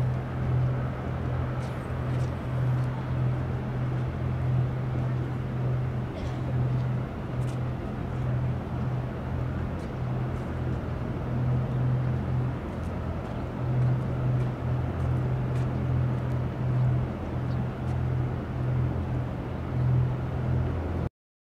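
Outdoor ambience dominated by a steady, low engine-like hum that swells and fades a little, with a few faint clicks; it cuts off abruptly near the end.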